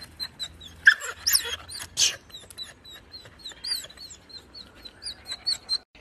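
Dog whining and yelping in short high-pitched bursts, loudest between one and two seconds in, with a high chirping repeating throughout.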